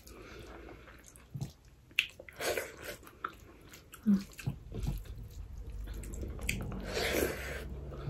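Fingers mixing and squeezing cooked rice with curry on a plate: soft, wet squishing in short, irregular bouts, with a few light clicks.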